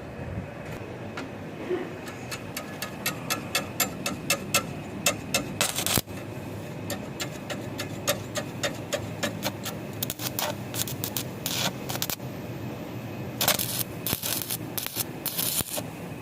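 Metal being tapped: quick runs of sharp taps, about three or four a second, which stop and start again several times over a steady low workshop hum.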